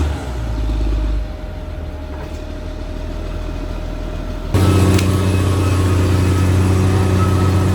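Caterpillar D6R XL bulldozer's diesel engine running. It falls away to a quieter, lower sound at the start, then comes back abruptly, loud and steady, about four and a half seconds in.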